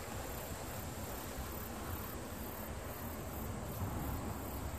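Crickets and other insects chirring steadily, over a low steady rumble.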